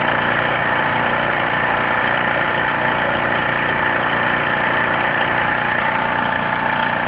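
Small petrol generator engine running steadily while driving a car alternator, with a steady high whine over the engine noise. The alternator's field has just been excited, so the engine is running under the alternator's load.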